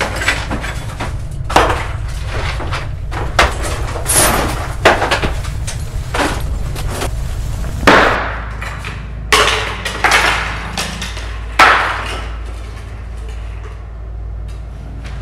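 Irregular clatter of hard objects being handled and knocked about, about a dozen sharp bangs and knocks, some ringing briefly, over a steady low hum.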